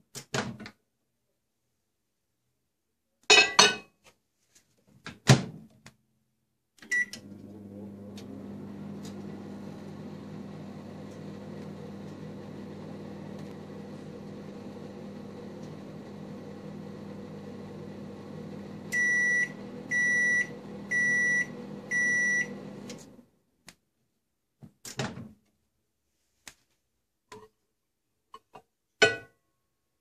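Samsung MG23F302TAK microwave oven: a few clicks and knocks as the door is closed, a short button beep, then a steady hum while it heats for about twelve seconds. The deeper part of the hum drops out, the oven beeps four times to signal the end of the cycle, and the hum stops a second later; a few clicks follow as the door is opened.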